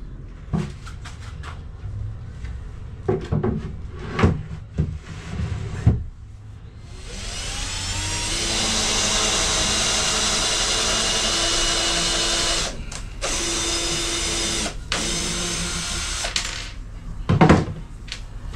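Cordless drill driving screws down through a board panel. After a few clicks and knocks, the motor winds up about seven seconds in and runs in three long stretches with short breaks, followed by a couple of sharp knocks near the end.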